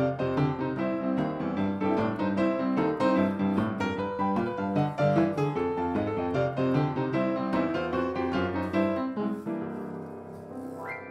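Piano music, a quick run of bright notes, fading out about nine seconds in, with a short rising tone near the end.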